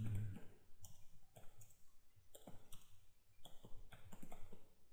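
Typing on a computer keyboard: irregular keystroke clicks, several a second.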